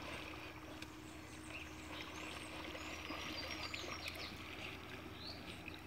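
Faint outdoor ambience by open water: a low steady hiss and hum with light water sounds, and a few faint, short high chirps in the middle.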